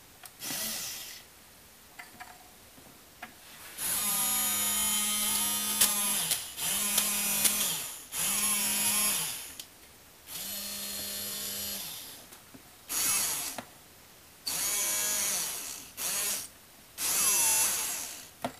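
Small geared DC motors of a hobby robot arm running in repeated short bursts, about eight, each lasting one to two seconds with gaps between. Each burst has a steady buzzing hum and a gear whine that bends up and down in pitch.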